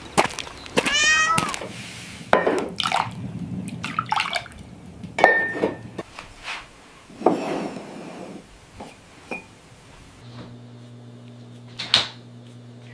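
A cat meows once, a short call about a second in, among scattered clicks, knocks and rustling; a steady low hum comes in near the end.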